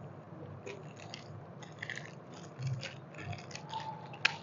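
Thin disposable plastic piping bags crinkling and rustling as they are handled, in scattered short crackles, with one sharper click near the end.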